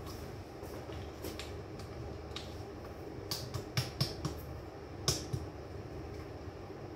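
A scattering of light clicks and taps from bottles and small kitchen items being handled on a counter, most of them in the middle of the stretch and the sharpest about five seconds in, over a low steady hum.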